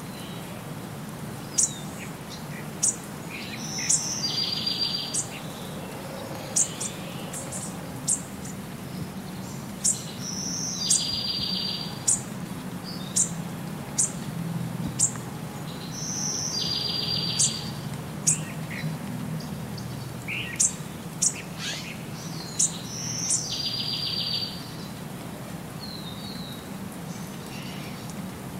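Birdsong: many short, sharp chirps, and a buzzy trill that comes back about every six seconds, over a steady low hum.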